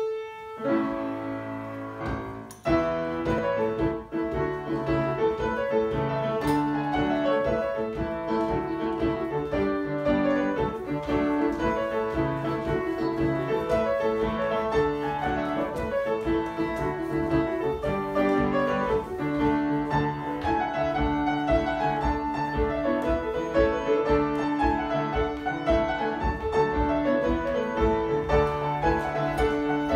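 Piano playing jig music for Scottish country dancing: one opening chord held for about two and a half seconds, then the tune starts in a steady, bouncing jig rhythm.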